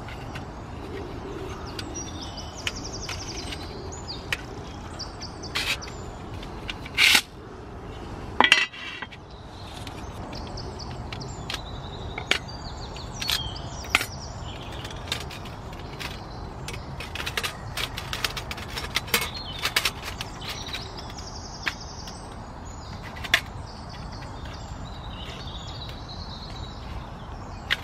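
Scattered knocks and clicks, two louder ones about seven and eight and a half seconds in, over birds chirping in woodland.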